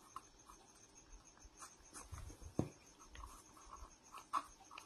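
Pen writing on a lined notebook page: faint, irregular scratching strokes, with two sharper taps about halfway through and near the end.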